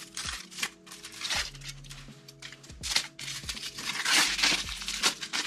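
Aluminium foil wrapper of a chocolate bar crinkling and tearing in several rustling bursts as it is peeled off by hand, the loudest near the end, over soft background music.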